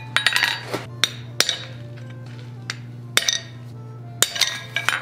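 Hammer blows on a hand-held blacksmith's chisel cutting into hot steel on an anvil, sharp ringing metal strikes: a quick cluster at the start, single blows about a second in and a moment later, then a pause and more blows from about three seconds. A steady low hum runs underneath.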